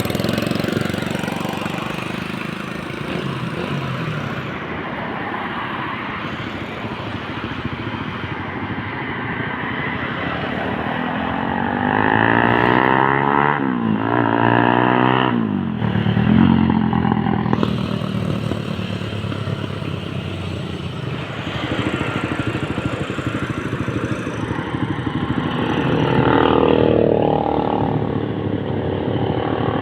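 Suzuki Raider 150 single-cylinder engine running through a Daeng replica aftermarket exhaust. The engine note climbs and falls sharply about halfway through, and swells once more near the end.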